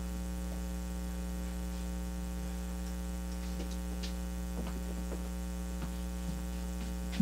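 Steady electrical mains hum, with a few faint clicks and knocks around the middle.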